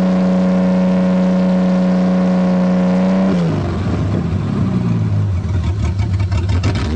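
1984 Toyota Cressida engine racing at high revs with its throttle stuck open, running on gas left in the tank since 2000. About three seconds in the revs drop sharply to a rougher, lower-speed run, and they start to climb again at the very end.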